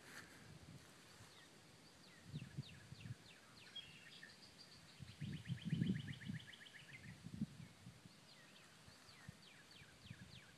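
Songbirds singing: short down-slurred whistled notes from several birds, with a fast trill of repeated notes about five seconds in. A few soft low rustles underneath.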